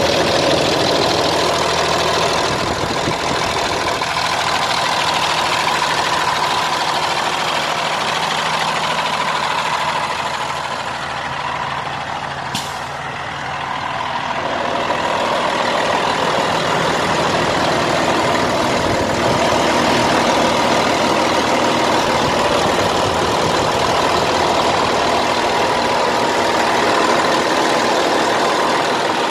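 Heavy truck's diesel engine idling steadily, heard close up at the open engine bay, with a steady whine over the engine note. It gets a little quieter for a few seconds around the middle, and there is one short, sharp click about halfway through.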